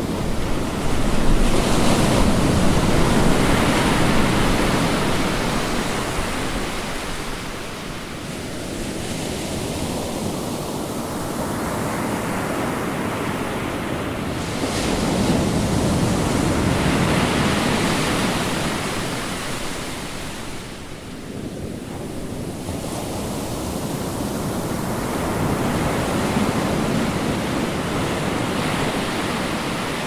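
Ocean surf: waves breaking and washing in as a steady rushing noise that swells and fades in three slow surges.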